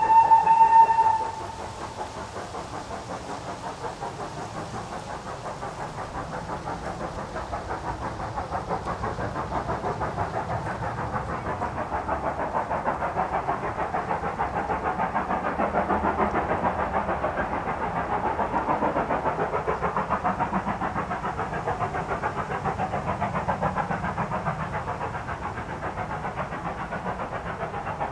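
A steam locomotive's whistle sounds briefly at the start. Then its exhaust beats as it works a train of coaches, a steady rapid chuffing that grows louder as it nears and eases a little near the end.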